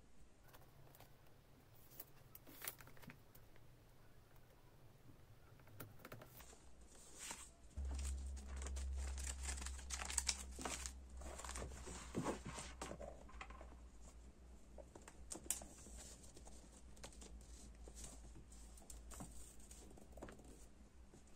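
Paper rustling and pages of a thick hardcover notebook being flipped and handled, with scattered light taps and crinkles. A low hum comes in about eight seconds in.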